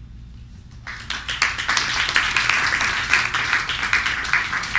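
Audience applauding, beginning about a second in.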